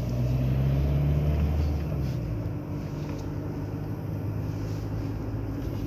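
Low, steady engine and road rumble of a moving vehicle, louder for the first two seconds and then easing to an even drone.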